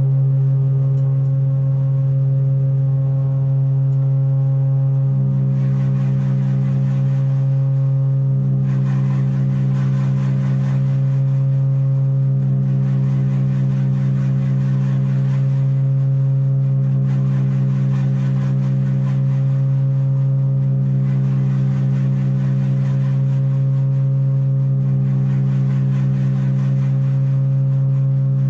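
Improvised drone music: a loud, steady low hum with several held tones stacked above it. A noisier, brighter layer swells in and out every three to four seconds from about five seconds in.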